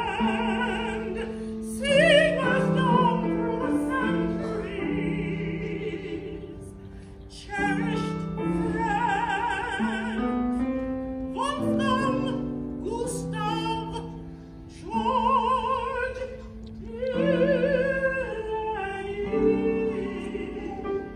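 A woman singing in an operatic style, long held notes with wide vibrato in phrases of a few seconds, over sustained instrumental accompaniment chords.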